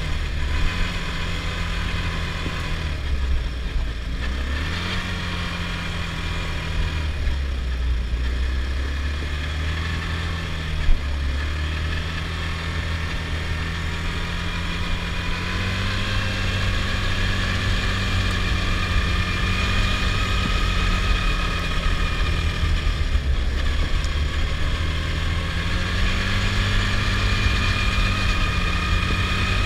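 Adly Hurricane 320 quad's engine running under way, its speed rising and falling with the throttle through the first half, then holding higher and steadier, with a high whine that slowly climbs. One short sharp knock about eleven seconds in.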